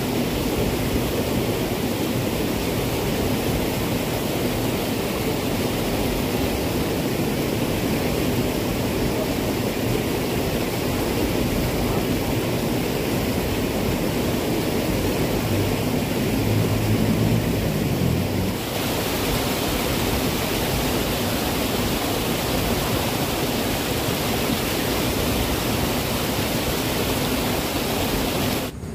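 Rushing water of a small irrigation ditch swollen with muddy flood water, a steady, even rush. A brief low hum joins it about two-thirds of the way through, and the sound drops away suddenly at the very end.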